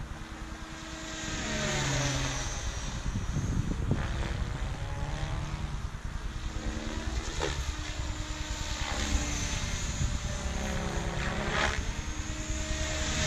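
Minicopter Diabolo 550 electric RC helicopter, with an X-Nova 4020 motor and 557 mm main blades, flying: rotor buzz and motor whine that swing down and up in pitch several times as it passes and manoeuvres.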